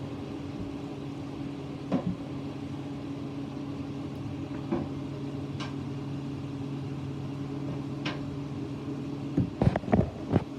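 A steady mechanical hum, with a few sharp clicks of a utensil against the pan while the seasoned chicken is stirred, and a quick cluster of louder taps near the end.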